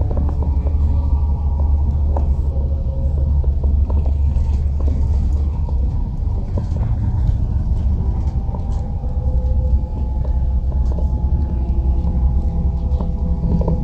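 Steady low rumble of a vehicle's engine and road running, heard from inside the vehicle, with faint higher tones drifting over it.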